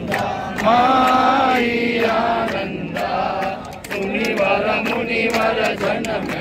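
A crowd of devotees singing a Hindu aarti hymn to the goddess together, with sharp percussive strikes scattered through the singing.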